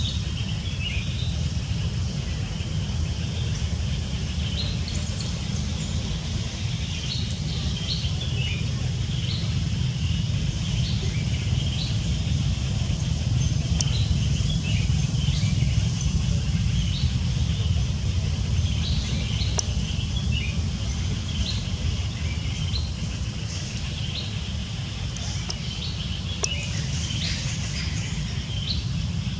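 Many short, high bird chirps scattered throughout, over a steady low rumble.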